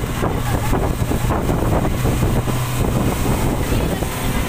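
Speedboat engine running steadily under way, with a constant low hum, and wind buffeting the microphone.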